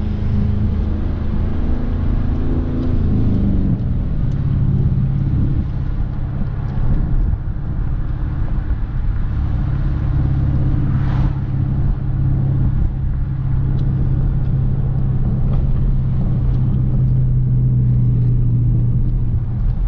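Dodge Charger R/T's 5.7 Hemi V8 exhaust, heard from inside the cabin with the active exhaust valve held open in Track mode, droning steadily at low cruising speed. The drone is loud, and its pitch holds level through the second half.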